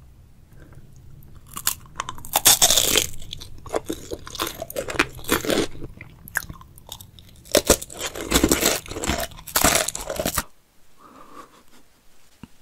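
Close-miked biting and crunching of a crisp wafer cone filled with chocolate and topped with candy-coated chocolates, with loud crunching bites about two seconds in and again near eight seconds and chewing between. The crunching stops suddenly about two seconds before the end.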